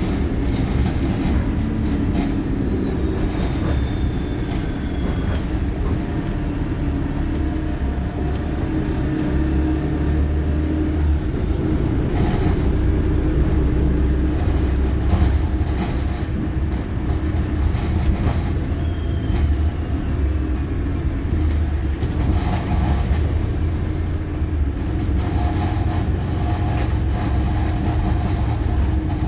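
Wright StreetLite single-deck bus under way, heard from inside: a steady diesel engine and road rumble with rattles and short clatters, and twice a falling whine.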